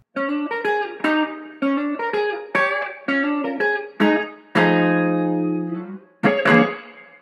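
A short guitar music sting: a run of quick plucked notes, a longer held chord about halfway through, and two short closing notes near the end.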